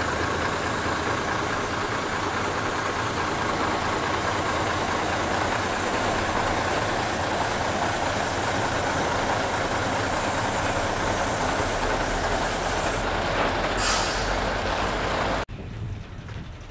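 Train running: a steady loud rumble and hiss with faint steady whining tones. There is a short hiss about fourteen seconds in, and the noise breaks off abruptly near the end.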